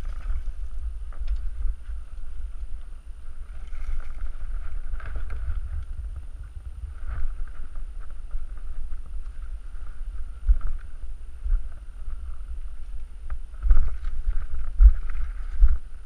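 Wind and handling rumble on the camera microphone, with the knocks and rattles of a mountain bike being moved over a rocky trail. Several heavier thumps come near the end.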